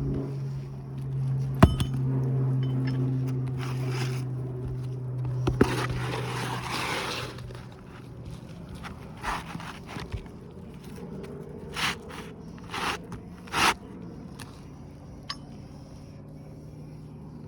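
Roofing hand tools scraping and knocking against asphalt shingles: a few sharp clicks and a longer scrape, then a run of short scraping strokes. A steady low hum under the first half stops about halfway through.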